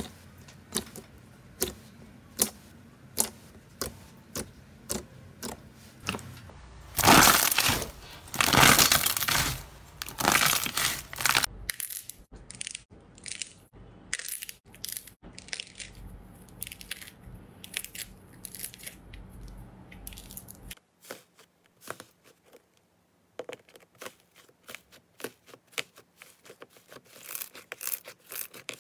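Slime being poked, squeezed and pressed by hand. A run of sharp pops and clicks is followed by a few seconds of louder, dense crackling from about seven to eleven seconds in, then quick crackling clicks near the end.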